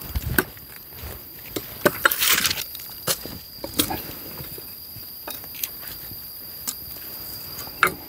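Dry leaves and twigs crackling and snapping in scattered crunches, with a longer rustle about two seconds in.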